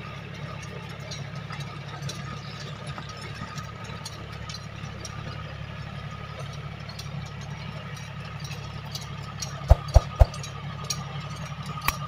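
John Deere tractor's diesel engine running steadily as it pulls a rotavator through the field, with a thin steady whine above the engine hum. Three sharp thumps come close together about ten seconds in.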